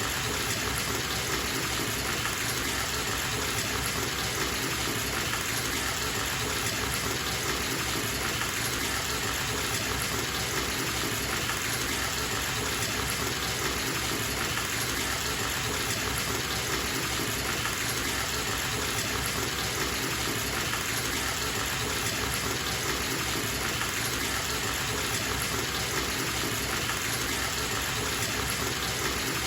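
Bathtub tap running, water pouring steadily into the filling tub as an even, unbroken rush.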